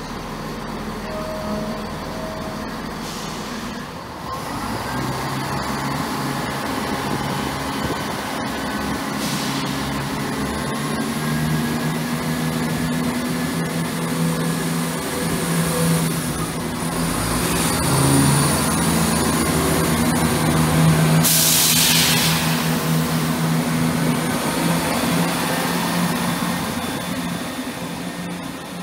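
ScotRail Class 170 Turbostar diesel multiple unit running its engines as it pulls out past the platform, the engine note growing louder and climbing. About three-quarters of the way through there is a short, sharp hiss of air from the train's brake system.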